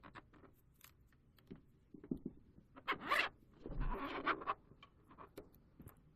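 Packaging being handled by hand: scattered small clicks and taps, with two louder scraping rasps about three and four seconds in, each lasting under a second.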